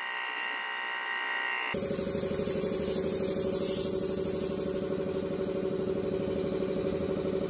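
Steady machine hum with a fast pulsing beat and a faint high hiss, starting abruptly about two seconds in after a quieter steady whine.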